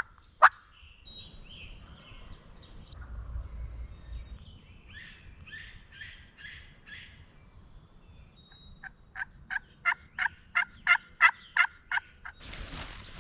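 A bird calling in runs of loud, rapid, evenly spaced notes: two near the start, a softer run midway and a longer run of about a dozen notes toward the end. A steady hiss sets in just before the end.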